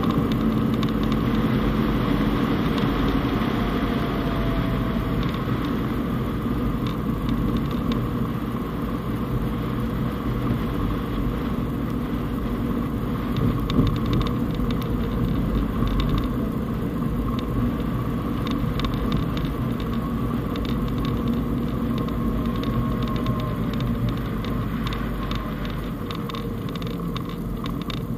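Fiat Panda Cross driving steadily on a snowy road, heard from inside the cabin: a continuous engine and tyre rumble, with scattered light crackles in the second half.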